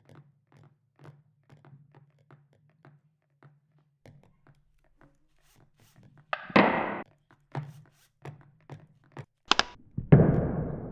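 Foley sound effects made by hand: a run of light knocks, about two a second, over a low hum, then a loud noisy burst about six seconds in, a few more knocks, a short sharp crack, and a heavy thud with a ringing tail near the end.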